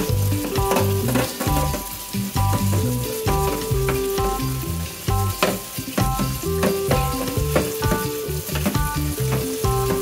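Tap water running and splashing onto a metal toaster-oven tray in a stainless-steel sink while a plastic dish brush scrubs the tray in quick strokes. Background music with a melody and bass line plays throughout.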